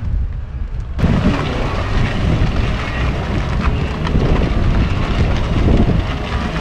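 A large wildebeest herd stampeding down a riverbank: a dense, loud rumble of many hooves that swells abruptly about a second in.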